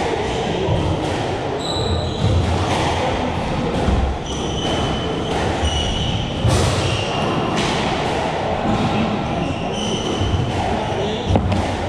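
Squash rally: sharp smacks of racket on ball and ball off the walls, about one every second or two, with short squeaks of court shoes on the wooden floor between shots, echoing in the enclosed court.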